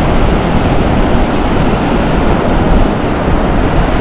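Loud, steady rush of wind on the microphone mixed with ocean surf breaking on the beach.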